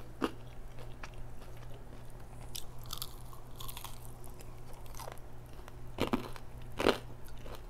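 Crispy fried chicken being bitten, chewed and pulled apart by hand, the battered crust crunching in scattered sharp crackles, loudest twice near the end.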